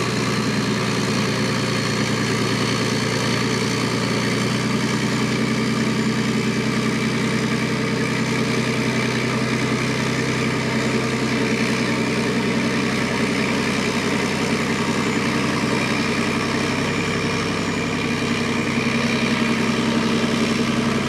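Diesel engine of a heavy tracked armoured vehicle on a Leopard 2-type chassis, running steadily at low revs as it creeps onto a bridge ramp, rising slightly near the end.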